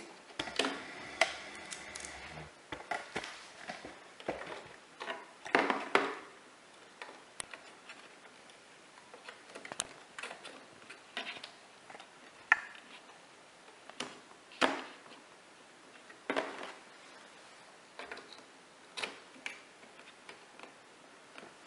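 Irregular clicks and taps of RAM modules being handled and pressed into a motherboard's memory slots, with a few louder knocks along the way.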